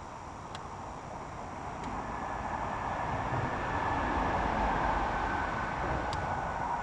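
A vehicle crossing the concrete road bridge overhead: rushing tyre noise and rumble swell to a peak about halfway through and ease off a little, with a faint whine that drifts slightly lower in pitch.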